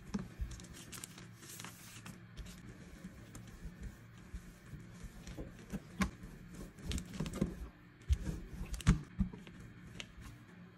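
Metal rolling pin rolling cookie dough flat inside a plastic zip-top bag on a countertop: plastic crinkling with irregular knocks and taps, the loudest thumps in the second half.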